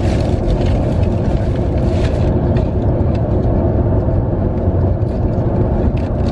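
Steady low rumble of road and engine noise inside a moving car's cabin, with a few faint light clicks over it.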